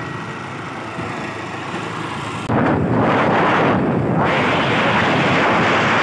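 Wind buffeting the microphone of a camera riding on a moving motorbike, over the bike's running and road noise. About two and a half seconds in the wind noise suddenly gets much louder, and it dips briefly about a second and a half later.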